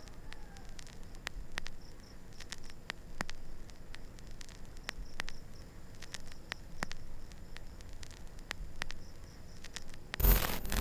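Quiet night ambience with faint, regularly repeating insect chirps and scattered soft clicks. A sudden loud burst of noise comes near the end.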